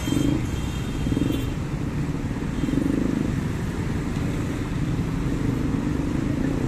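Traffic of motorcycles and scooters pulling away and crossing the railway tracks. Their small engines run steadily, swelling a few times as groups ride past.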